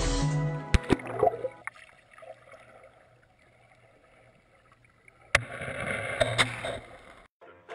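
Sea water sloshing and gurgling around a camera at and under the surface: faint and muffled for a few seconds, then a sudden louder rush of water noise about five seconds in that cuts off abruptly near the end.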